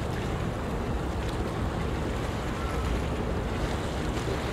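Wind buffeting the microphone: a steady low rumble of outdoor wind noise without any distinct event.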